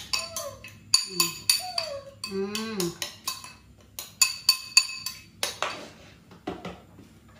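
Metal spoon stirring a mixture in a ceramic bowl, clinking against the bowl's sides about three times a second with a bright ring, stopping a little past halfway through.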